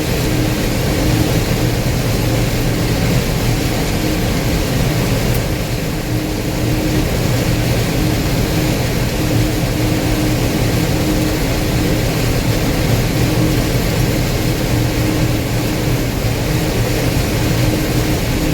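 Gleaner combine running steadily while harvesting corn: a constant engine and threshing-machinery drone with a steady low hum.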